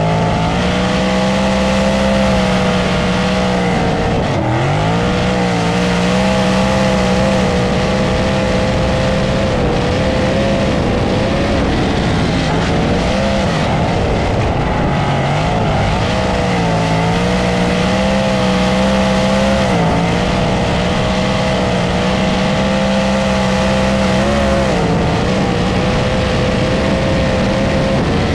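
USAC Silver Crown sprint-type race car's engine running flat out at high revs, heard from an onboard camera with wind rush, its pitch dipping briefly several times and climbing back.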